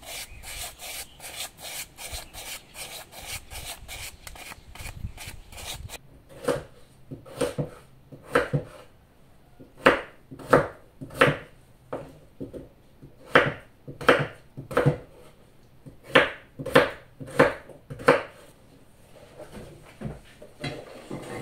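A paintbrush scrubbing paint onto rough brick, in quick rubbing strokes. About six seconds in this gives way to a kitchen knife chopping diced potatoes on a wooden cutting board: sharp single chops in runs of three or four, with short pauses between runs.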